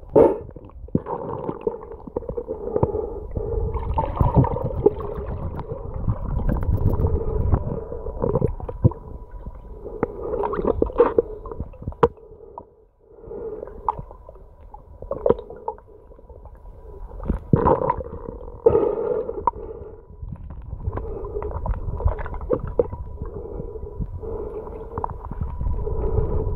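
Muffled underwater sound picked up by a submerged camera: irregular rumbling and gurgling of water moving around it, with occasional knocks, under a faint steady tone. It drops away briefly about halfway through.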